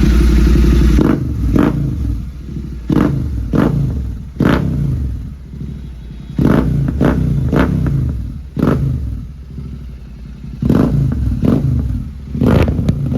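Royal Enfield Continental GT 650's 648 cc parallel-twin revved through a Red Rooster Performance exhaust with its dB killer removed. It gives about a dozen sharp throttle blips, some in quick twos and threes, each dropping back toward idle.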